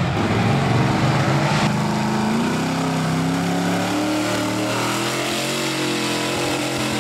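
Lifted full-size van's engine running at high revs as it drives through deep mud. The pitch climbs about two seconds in, then holds steady.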